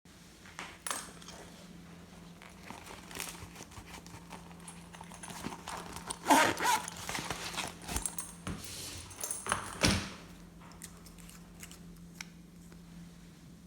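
Slime and containers being handled by hand: scattered clicks, taps and crinkles, busiest in the middle, over a steady low hum.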